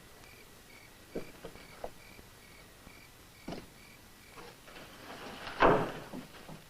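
Crickets chirping, about three chirps a second, with a few soft knocks; about five and a half seconds in comes a louder thump of a door, the loudest sound.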